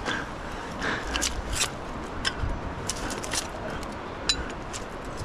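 Rusty scrap metal clinking and scraping as a gloved hand sorts through a pile of magnet-fishing finds on a pavement, with scattered light clinks throughout.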